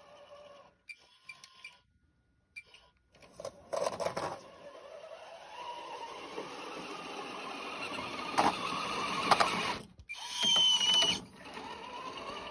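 Radio-controlled CEN Racing F-450 truck's electric motor and gears whining, the pitch rising and falling with the throttle. A near-silent pause comes early on, a few sharp clicks follow later, and the whine is loudest for about a second near the end.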